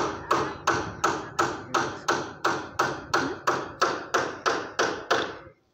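Steady, rhythmic knocking, about three sharp strikes a second, each fading quickly. It stops abruptly near the end.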